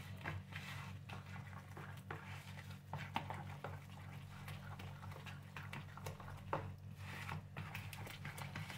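Steel spoon stirring thick semolina batter in a plastic bowl: soft irregular squelching with light clicks of the spoon against the bowl, over a steady low hum.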